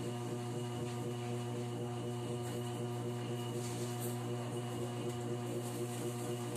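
A steady low hum with even overtones, unchanging throughout.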